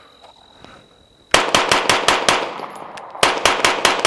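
Rapid-fire 9mm pistol shots from a SIG P320 X5 Legion: a quick string of about seven shots starting about a second and a half in, a short pause, then a second string of about six shots near the end.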